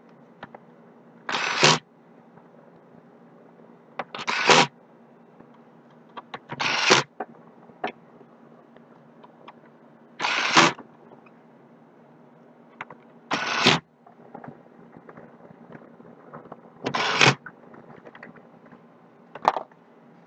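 Seven short scraping noises, each about half a second long and a few seconds apart, over a faint steady hum.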